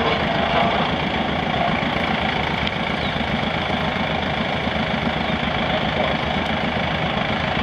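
1938 John Deere A's two-cylinder engine idling steadily.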